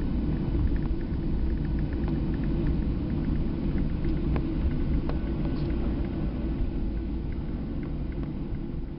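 Steady low rumble of a jet airliner's engines and airframe heard from inside the cabin while the plane taxis, with a few faint clicks and rattles.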